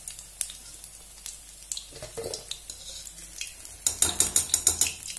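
Koftas deep-frying in hot oil in a kadhai, with scattered light crackles. About four seconds in, a louder run of rapid crackling and clinking lasts about a second as a wire-mesh skimmer lifts koftas out of the oil.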